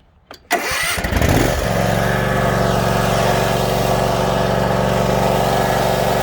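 Kawasaki 23-horsepower V-twin engine of a zero-turn riding mower starting up: a click, then a brief crank, and it catches about a second and a half in and runs steadily and smoothly.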